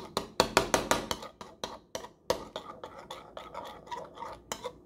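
Spoon stirring a thick gochujang glaze in a bowl, clinking and scraping against the bowl's sides. The taps come in a quick run at first, then more sparsely.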